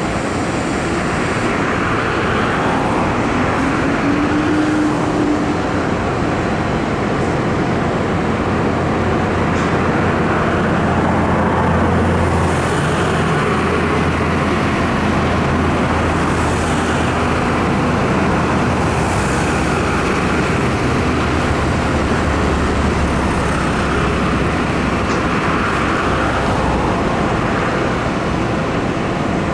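Steady road traffic noise with vehicles passing every few seconds, and a low engine drone through the middle.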